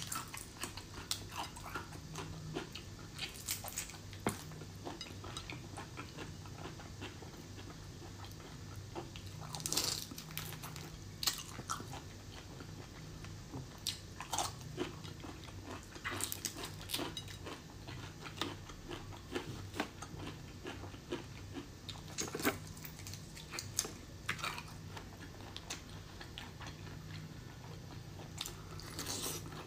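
Close-miked eating sounds: chewing and biting of soy-marinated shrimp, with frequent sharp clicks and crackles as the shells are peeled and bitten.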